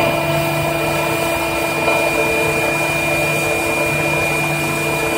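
Air compressor running: a steady drone with a constant high whine over it.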